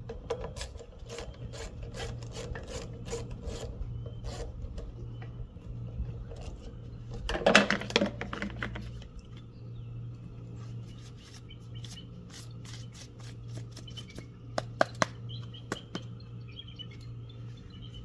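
Ratchet with a 9/32 socket clicking in quick runs while backing out the screws that hold the filter housing to a Lawn Boy mower's carburetor, with a louder clatter of metal parts handled midway and a few sharp clicks later. A steady low hum runs underneath.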